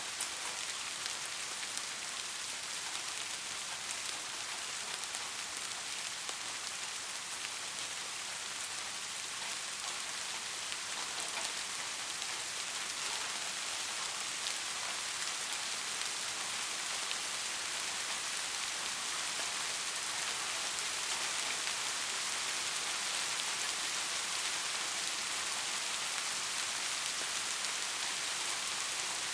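Steady rain falling on a surface: an even hiss with many fine drop ticks.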